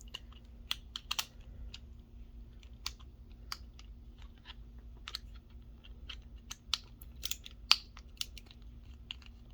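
Light, irregular clicks and taps of small metal parts being handled and worked loose on a fishing reel's handle assembly.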